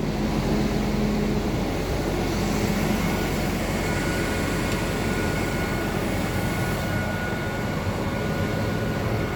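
Heavy farm vehicle's engine idling steadily while it warms up and builds brake pressure, with a faint steady whine joining about four seconds in.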